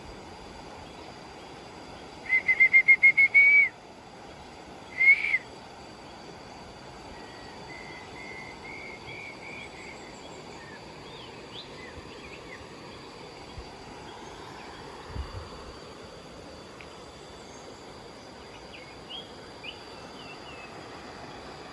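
A bird calling: a quick run of about eight loud, high, even notes, a single note a second later, then softer runs of similar notes, over a steady rural background hiss with a thin high insect drone.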